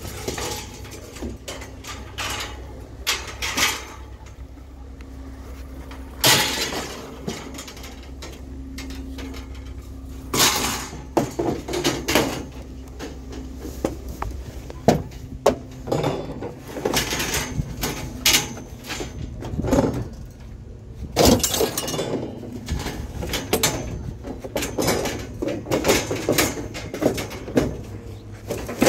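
Curbside scrap being handled and loaded: an irregular series of clanks, knocks and rattles, busiest in the second half, over a steady low hum.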